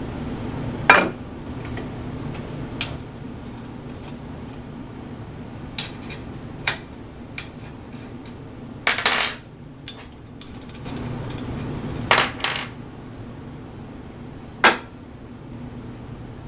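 Scattered sharp metallic clinks and knocks, about seven of them, from an aluminium plate and its bolted spindle mount clamp being handled against an aluminium-extrusion frame. A steady low hum runs underneath.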